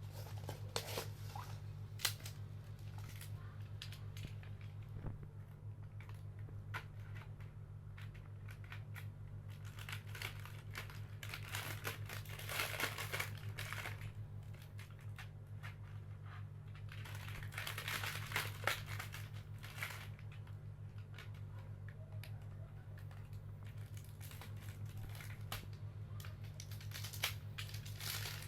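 Packaging crinkling and rustling as it is unwrapped by hand, with scattered clicks and knocks. There are louder crinkling spells about twelve and eighteen seconds in, over a steady low hum.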